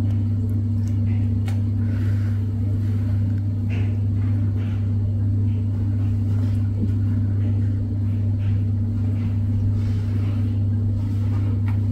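Steady low hum of a running laundry machine, with faint soft scuffs and rustles of two cats wrestling on a felt mat.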